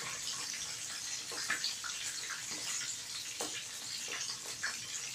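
Whole egg-coated tilapia deep-frying in a pan of hot oil: a steady sizzle with many small crackles and pops as the oil bubbles around the fish.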